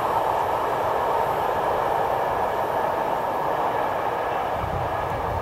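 A freight train's wagons rolling past on the rails, giving a steady rolling noise with no breaks or lulls.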